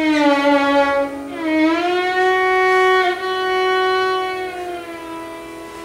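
Violin bowing a Hindustani phrase: a long note that dips and then glides up, a meend, to a higher note held for a couple of seconds, then steps back down a little near the end.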